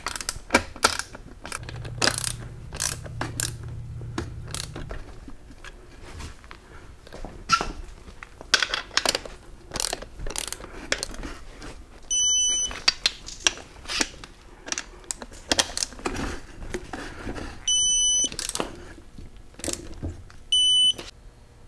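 Bolts being tightened with a torque wrench: ratchet clicks in short strokes, with three short high electronic beeps in the second half. The beeps are those of a digital torque wrench signalling that the set torque of 30 foot-pounds is reached.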